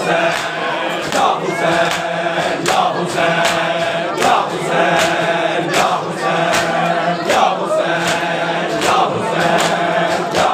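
A crowd of men chanting a Muharram noha in unison, with sharp rhythmic strikes of hands on bare chests (matam) about every three-quarters of a second.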